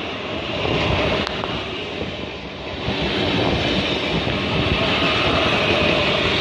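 Double-deck passenger train running past close to the platform: a steady rumble and hiss of wheels on rails, with a sharp click about a second in.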